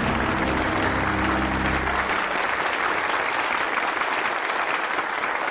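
Studio audience applauding steadily, under the tail of a low, sustained music sting that cuts off about two seconds in.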